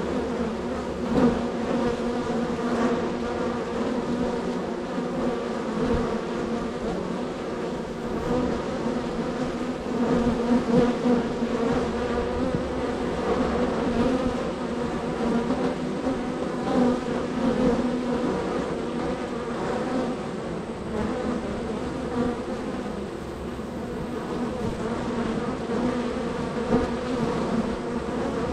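Many honey bees buzzing in a steady drone at a busy hive, with single bees passing close and briefly louder now and then.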